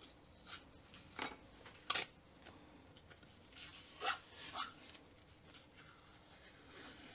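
Masking tape and paper being pulled and peeled out of the manifold ports of a freshly painted cylinder head: faint, scattered rustles and scrapes, with one sharp click about two seconds in.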